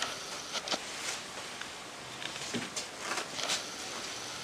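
Fine-tooth comb drawn through long, straightened hair: several brief, soft swishing strokes at an uneven pace.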